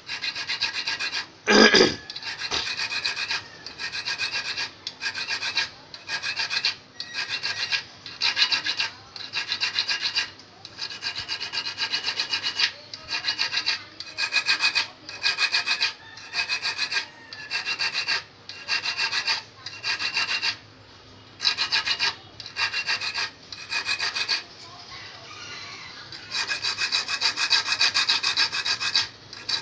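Small half-round steel file rasping across the point of a steel fishhook, sharpening the point and barb. It goes in short bursts of quick strokes about once a second, each with a high metallic ringing note, with one louder stroke about two seconds in and a short pause a few seconds before the end.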